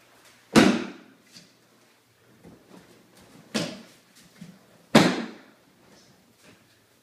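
Aikido breakfalls: a body slapping down hard onto the training mat three times, about half a second in, about three and a half seconds in, and about five seconds in, the first and last the loudest. Soft footfalls and rustling of gi and hakama between the falls.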